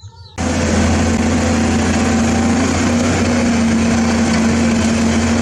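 Caterpillar crawler bulldozer's diesel engine running steadily with a constant hum as the machine pushes broken rock with its blade. The sound cuts in abruptly about half a second in.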